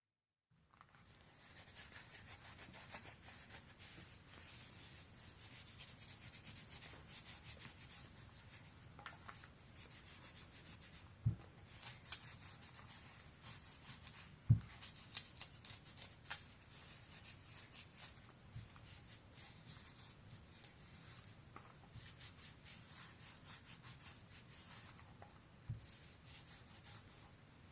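Faint rubbing of a glass-cleaning wipe over a soldered glass paperweight, with a few light knocks of the piece being handled, the clearest about eleven and fourteen seconds in.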